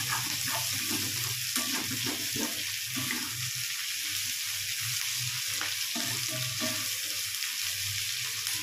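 Sliced onions and greens sizzling in hot oil in a wok, with a spatula stirring and scraping through them now and then. A low steady hum runs underneath.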